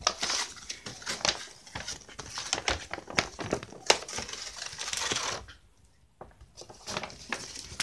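Paper instruction leaflet rustling and crinkling as it is unfolded and handled, with scattered small clicks; it briefly falls quiet just past the middle.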